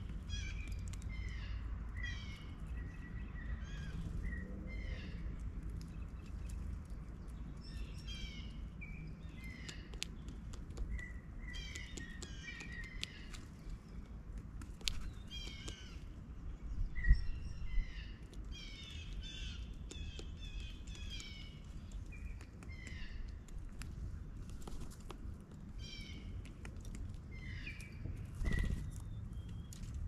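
Blue jays calling over and over, in short runs of a few calls each, with a couple of sharp knocks a little past halfway.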